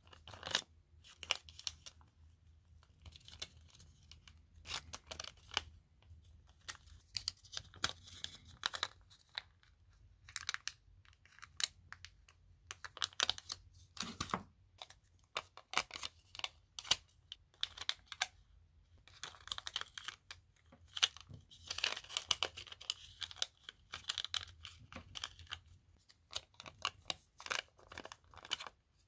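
Paper stickers, including a sheet of small round dot stickers, being peeled off their backing and handled: irregular crackly peeling and crinkling of the backing paper, with many short clicks.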